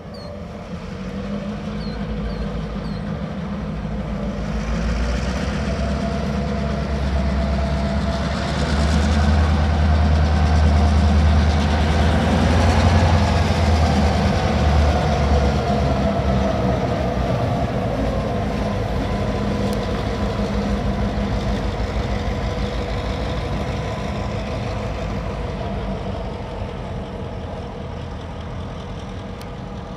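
Two Union Pacific diesel locomotives and a short string of tank cars passing by: deep engine rumble and rolling wheels that grow louder to a peak about twelve seconds in, then fade as the train moves away. A whine slides down in pitch as they recede.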